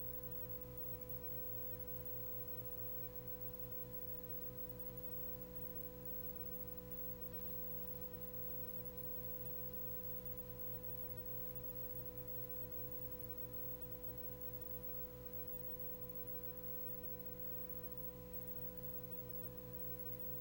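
Steady low electrical hum with a buzz of several overtones, unchanging throughout: mains hum left on an audio feed with no programme sound.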